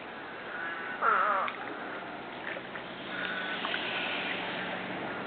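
A crow caws once, loudly, about a second in, over a faint steady outdoor background.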